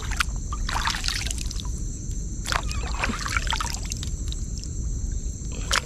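Water splashing and trickling in a few irregular bursts, as from a paddle or a net being worked beside a small boat.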